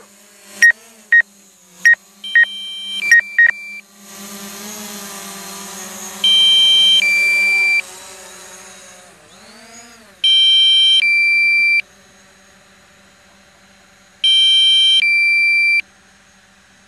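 Drone controller's low-battery alarm: short electronic beeps at first, then a loud two-tone beep, a high tone stepping down to a lower one, repeating about every four seconds over a steady low hum.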